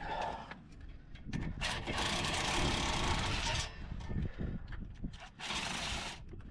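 Compressed-air tool run in two bursts, one about two seconds long and a shorter one near the end, each a loud hiss of exhaust air that starts and stops sharply, with low clanking of metal between them.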